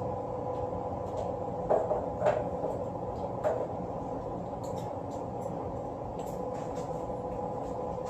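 Steady mechanical hum of a window air conditioner unit, with a few light clicks and knocks of fishing tackle being handled on a wooden workbench, about two seconds in and again a little later.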